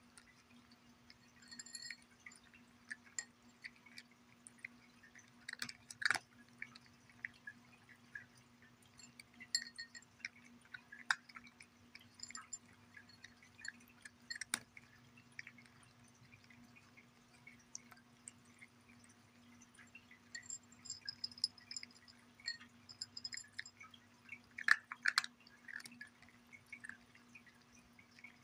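A cat eating dry kibble from a ceramic saucer: irregular small crunches and clicks as it chews and picks up pieces, with a few sharper clicks of kibble and teeth against the dish, over a faint steady hum.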